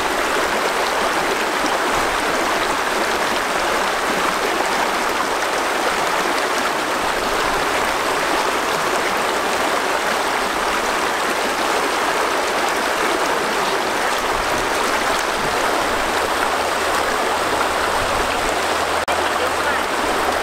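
Shallow stream rushing steadily over rocks and stones in small rapids.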